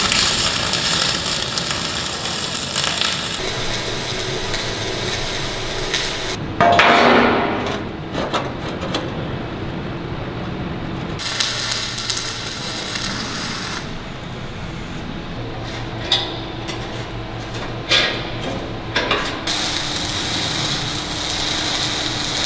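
Electric arc welding on steel plate: a steady crackling hiss in long runs, broken by a loud ringing metal clang about seven seconds in and a few sharp metallic knocks later on.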